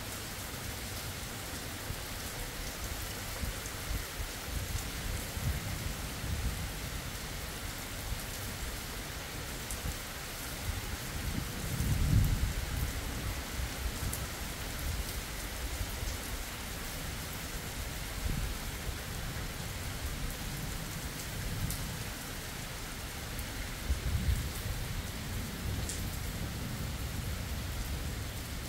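Steady rain falling on a wet road, with low rolls of thunder that swell loudest about twelve seconds in and again more weakly near the end.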